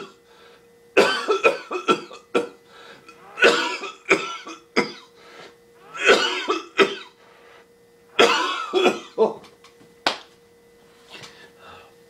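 A man coughing in repeated fits, with throat clearing: a drink has gone down the wrong pipe and he is choking on it.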